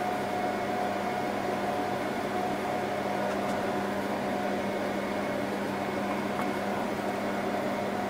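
Steady hum of cooling fans and machine noise, with a steady low tone and a higher one. Once or twice a faint click sounds as the RAM modules are pressed into their slots.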